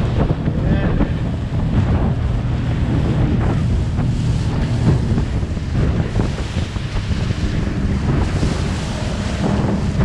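Wind buffeting the microphone and water rushing and slapping against the hull of a small motorboat running at speed over choppy water.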